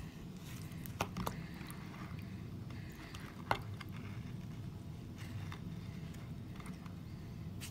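Fingers squishing and picking at soft, half-dissolved dig-kit blocks in water in a glass dish, with a few sharp taps, the loudest about three and a half seconds in, over a steady low hum.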